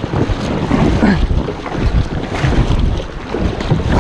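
Wind buffeting the microphone over the rush and splash of water along a plastic sit-on-top kayak's hull as it is paddled hard.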